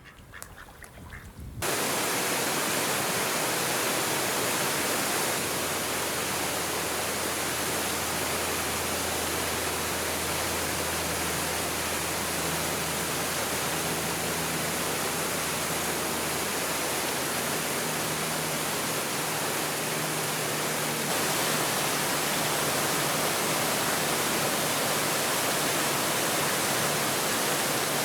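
Steady, even rushing noise that starts abruptly about two seconds in and holds at one level, with a faint low hum beneath it.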